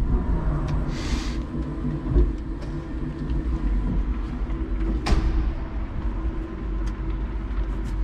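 Electric forklift moving, heard from inside its cab: a steady low rumble with a faint motor hum, a short hiss about a second in, and a sharp knock about five seconds in.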